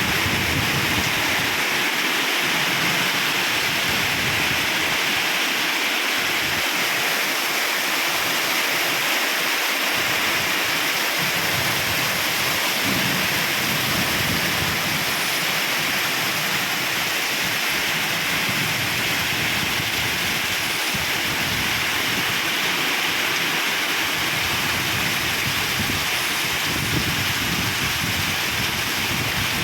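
Strong, typhoon-like storm wind with heavy rain: a loud, steady hiss with gusts rumbling low underneath.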